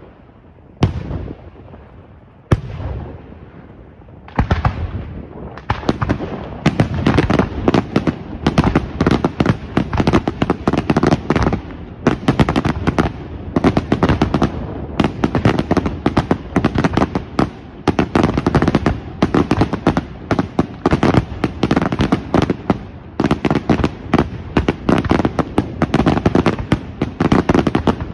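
Aerial firework shells exploding. First two separate loud bangs, then from about four seconds in a dense, rapid barrage of bursts, many reports a second, that keeps going.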